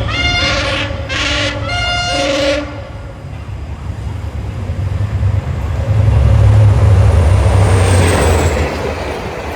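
Train horn sounding three short blasts, the pitch shifting between them, over the first two and a half seconds. Then a train approaches and passes with a loud low rumble, loudest about six to eight seconds in, and a faint high whine falling in pitch near the end.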